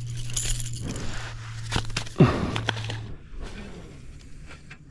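Scuffing and scraping in sand with a few sharp clicks as a small barramundi flaps on the sand and is lifted off it. A brief falling sound about two seconds in is the loudest moment. It goes quieter after about three seconds.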